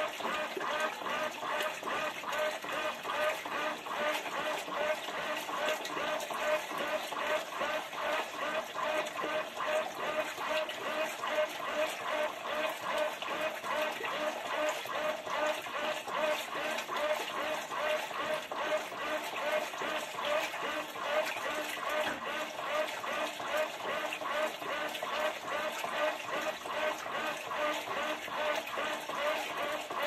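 Whirlpool Xpert System Smart Load top-load washing machine agitating a load in water during the wash cycle, heard in fast motion: sloshing water and the agitator's strokes run together into a quick, evenly repeating churning rhythm.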